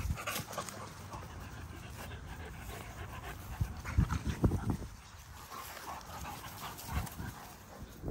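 American bully puppies panting and sniffing as they run about on grass, with a few soft knocks.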